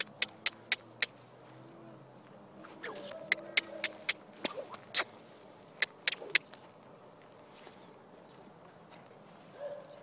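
Sharp clicking hoofbeats of a mare and foal moving on a dirt paddock, coming in short runs: four quick ones at first, a cluster a few seconds in, and the loudest single strike about halfway through. Under them are a faint steady insect buzz and a low hum.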